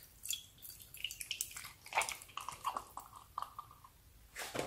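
Cut-open water squishy toy being squeezed, its watery contents squelching and dripping into a glass bowl: a string of short, irregular wet squelches, with a brief squeaky tone in the middle and a louder squelch near the end.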